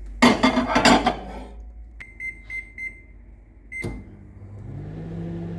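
Microwave oven being started: a loud clatter, then three quick keypad beeps and a fourth about a second later. The oven starts running with a steady low hum that builds up over the last second or two.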